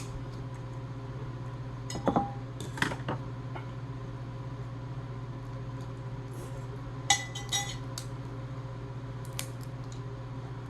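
Scattered clinks, taps and cracks of utensils, dishes and seafood shells being handled while eating, in a few short bursts with the loudest about seven seconds in, over a steady low hum.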